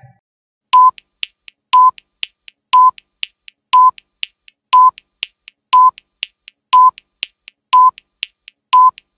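Countdown timer sound effect: a short electronic beep once a second, nine in all, with two faint ticks between each beep.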